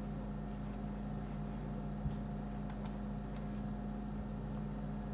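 Steady low electrical hum with a few faint clicks from a computer's keyboard and mouse, one about two seconds in and two close together shortly after.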